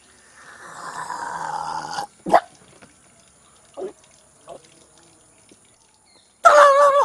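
A man's loud cry with a wavering pitch, like a howl, starting near the end, after a rough hissing noise that lasts about a second and a half near the start.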